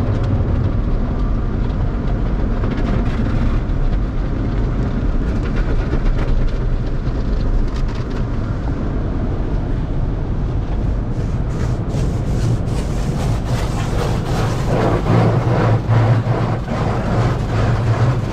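Automatic tunnel car wash heard from inside the car's cabin: water and foam spraying and wash cloths slapping against the body and windshield over a steady low rumble. The splashing and slapping grow louder and sharper in the second half.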